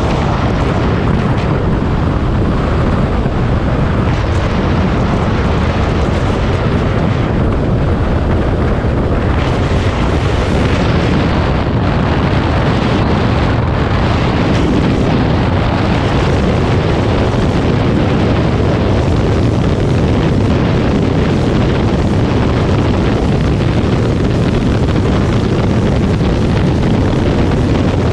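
Loud, steady wind rush on the microphone of a Honda CB500X motorcycle on the move, mixed with the bike's engine and road noise.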